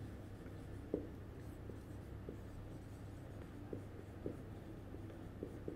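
Dry-erase marker writing on a whiteboard: faint, short scratches and taps of the tip as letters are formed, over a steady low hum.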